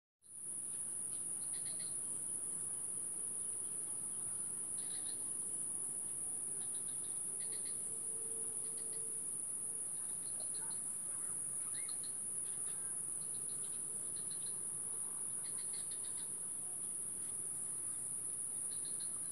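Steady high-pitched insect drone, with short chirps scattered through it.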